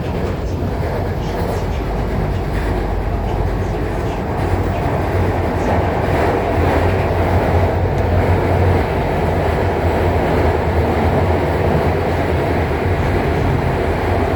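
Cabin noise of a Guangzhou Metro Line 5 linear-motor train running between stations: a steady rumble with a low hum, getting a little louder toward the middle.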